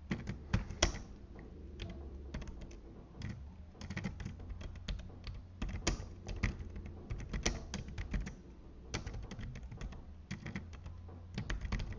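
Typing on a computer keyboard: irregular runs of key clicks, with short pauses between bursts, over a steady low hum.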